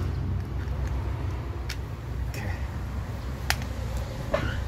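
Sharp metal clicks of pliers working on a car's exterior door handle assembly as it is taken apart, a few separate clicks with the loudest about three and a half seconds in, over a steady low hum.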